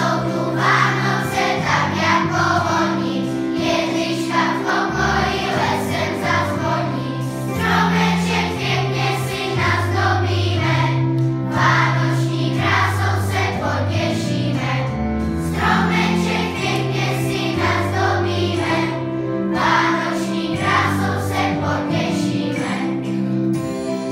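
A children's choir of primary-school pupils singing together over an instrumental accompaniment that holds long, steady low notes.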